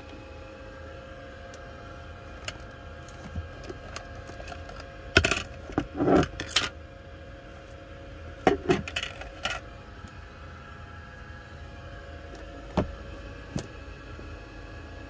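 A plastic storage tray and a wooden storage-box panel being handled, with clattering and knocking in two short clusters, one about five seconds in and one about eight and a half seconds in, and a couple of single knocks near the end. A faint steady hum runs underneath.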